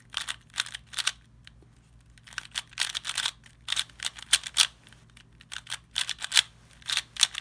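Non-magnetic QiYi Valk 3 speedcube turned fast by hand: quick runs of plastic clicking and clacking layer turns with short pauses between them, as the last layer is solved.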